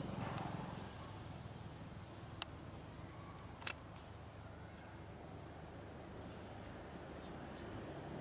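Steady, high-pitched insect drone, a single unbroken tone like a cricket or cicada, over a low outdoor rumble, with two faint clicks a little past the middle.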